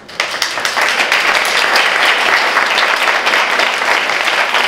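Audience applauding, starting all at once and keeping up steadily.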